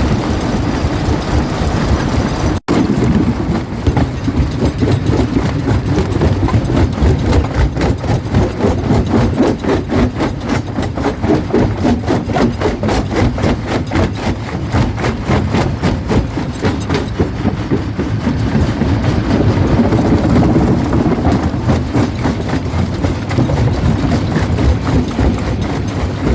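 Quarry jaw crusher running under load: a heavy steady rumble with a rapid, continuous crunching rattle of rock being broken between its jaws.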